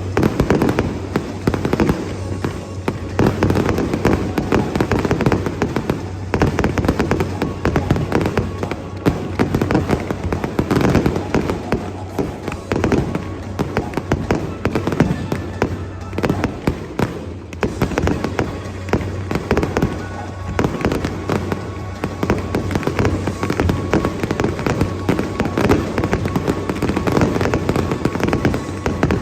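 Fireworks display going off in a rapid, continuous barrage of overlapping bangs and crackles, with no pauses.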